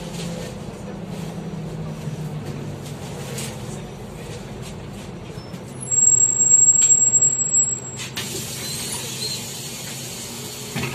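MAZ-203 city bus heard from inside the cabin: the engine runs with a low hum that sinks in pitch, then a loud high-pitched tone sounds for about two seconds. A long hiss of released air follows.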